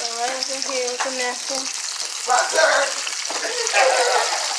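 Chicken pieces deep-frying in hot oil in a pot, a steady sizzle that swells louder twice, about two and a half and four seconds in.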